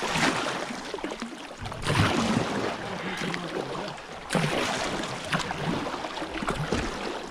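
Kayak paddle strokes splashing through river water, with louder surges every two seconds or so over a steady wash of water.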